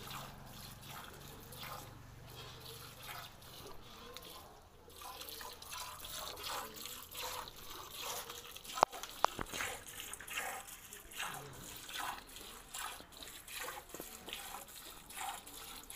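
Cow being milked by hand: rhythmic squirts of milk hitting a steel bucket partly filled with milk. Two sharp knocks about nine seconds in are louder than the rest.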